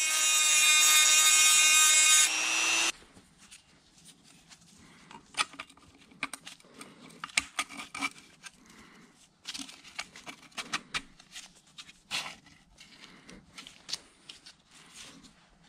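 Dremel rotary tool with a grinding stone running at a steady high whine while filing down the tabs of a thin steel quill skirt, stopping suddenly about three seconds in. Then quiet clicks and rubbing of the steel skirt being handled and fitted around the quill.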